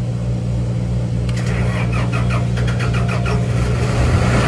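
The air-conditioning unit's generator-set engine being cranked over by its starter, a quick run of pulses about six a second, then catching and running, deeper and louder near the end, over a steady engine hum.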